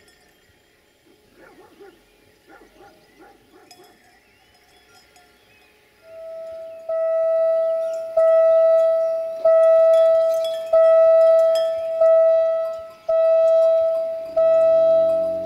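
Railway level crossing warning bell ringing, a clear tone struck about once every second and a quarter and fading between strikes, warning that a train is approaching. Near the end a low steady hum joins in.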